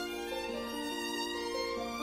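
Violin playing a slow, smooth melody, each note held and moving to the next every half second or so.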